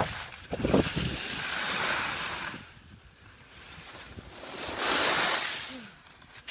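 Wind rushing over the microphone in two long swells of noise during a ski run, with a few low knocks about half a second in.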